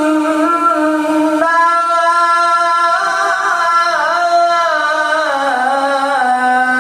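Qur'an recitation (tilawah) by a qari: one voice holding long, ornamented notes with slow pitch glides, dropping to a lower note about five seconds in.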